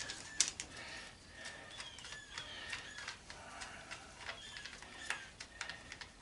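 Scattered light metallic clicks and taps of a screwdriver working screws out of an antenna rotator's housing, the sharpest couple near the start.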